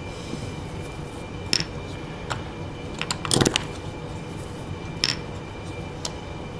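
Cartridges being pushed into a .32 pistol magazine on a homemade wooden loader: a sharp metallic click about every one and a half to two seconds, with a quick cluster of clicks midway, as the magazine is pressed down onto each round.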